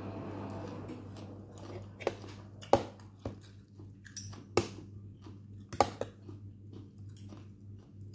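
A person chewing a mouthful of papaya salad with thick noodles, with a few sharp clicks between about two and six seconds in, over a steady low hum.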